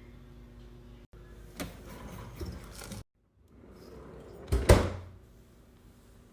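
Containers being handled and set down while a fridge is restocked: light knocks and rattles, then one loud knock or clatter about four and a half seconds in. The sound breaks off twice, where one short clip cuts to the next.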